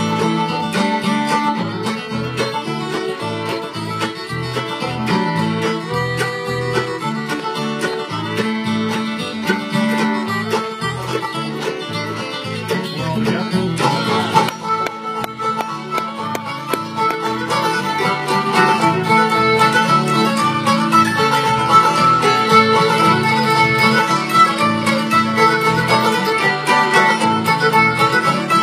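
Bluegrass band playing an instrumental break: fiddle, banjo, mandolin and guitars over upright bass. A new lead line comes in about halfway through, and the band gets louder in the second half.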